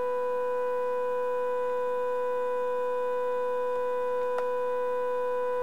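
Steady whine of several pitches from an IntelliQuilter's Y motor spinning its drive wheel in the roller-cleaning mode, with a faint tick about four seconds in.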